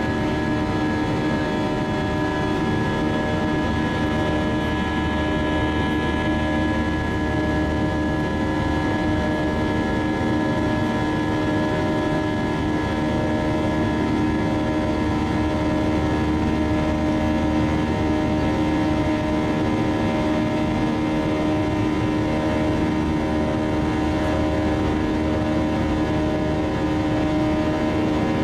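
IAE V2500 turbofan engines of an Airbus A320 at climb power, heard inside the cabin: a steady drone with several steady whining tones over a low rumble.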